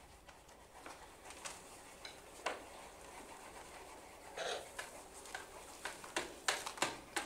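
Scattered light taps and clicks of crayons and crayon boxes on a tabletop as children colour, busier in the second half.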